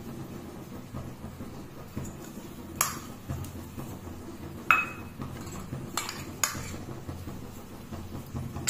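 A few sharp clinks of stainless steel kitchenware, the loudest about five seconds in ringing briefly, over a low steady hum.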